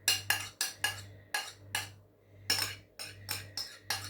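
A spoon knocking and scraping against a container in two quick runs of taps, about four a second, while the blended avocado-and-egg mixture is transferred out.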